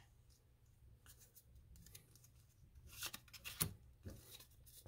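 Pokémon trading cards handled quietly, sliding and rubbing against one another, with a brief flurry of scraping about three seconds in that ends in a sharp tick.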